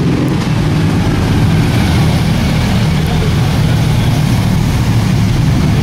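Motorcycle engine running low and steady as a motorcycle rides slowly past on the street.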